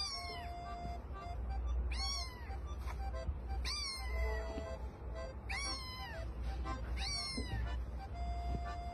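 A cat meowing over and over, about five drawn-out meows each rising then falling in pitch, one every one and a half to two seconds, over background music.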